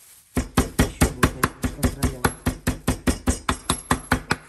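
Meat tenderizer mallet pounding a chicken breast fillet under plastic wrap on a cutting board to flatten it. About twenty quick, even blows, roughly five a second, starting just under half a second in.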